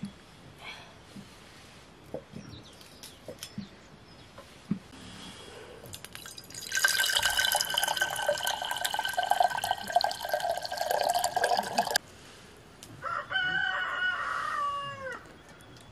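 Water pours steadily into an aluminium cooking pot for about five seconds and stops abruptly. A rooster then crows once, its call falling away at the end.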